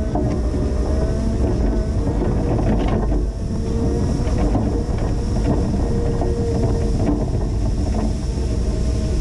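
Linde H20 EVO forklift running while plowing snow: a steady low engine drone with a whine that drifts up and down in pitch.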